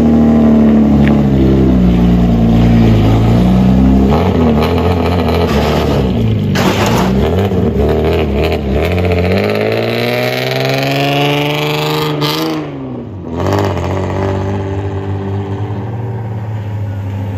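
Customised old Japanese sedan with a straight-piped exhaust, revved repeatedly as it pulls out and away, the engine note rising and falling. About ten seconds in it makes one long rising rev, then drops off and settles to a lower, steadier note.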